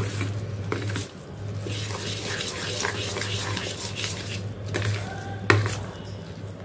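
A metal spoon stirs thick, fermented chana and urad dal batter in a stainless steel bowl, making a wet scraping sound. The spoon clinks sharply against the steel at the very start and again about five and a half seconds in.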